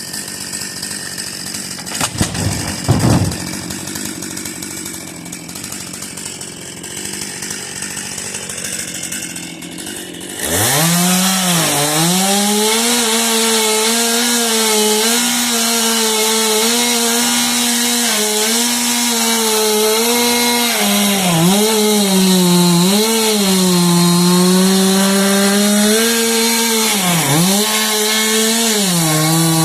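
Stihl chainsaw, at first running quietly with a few knocks, then about a third of the way in opened up to full throttle. It holds a high steady pitch that dips repeatedly as the chain bogs down cutting into the wood.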